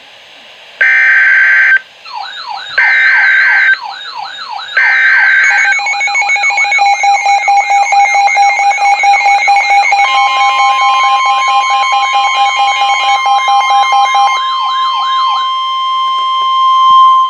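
NOAA Weather Radio emergency alert signals: three one-second bursts of screechy SAME data header, then overlapping alarm tones. A siren-like sweep repeats two or three times a second under steady tones, and about ten seconds in the steady 1050 Hz weather-radio warning tone begins and holds.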